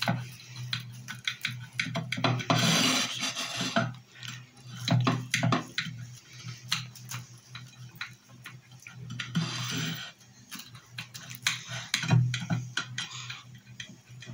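A knife cutting through a crusty semolina harcha on a ceramic plate: two longer crackly scrapes as the blade saws through the crust, with many small clicks and taps of the blade against the plate.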